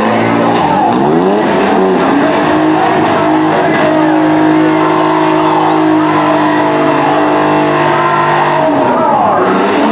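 Several demolition-derby mini trucks' engines running hard at high revs. The pitch sweeps up about a second in, holds high and steady through the middle while the trucks shove against each other, and falls away near the end.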